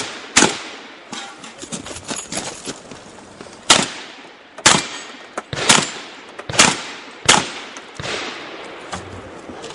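Shotgun being fired in a string of about six shots. After one shot near the start there is a pause of about three seconds, then the shots come roughly a second apart.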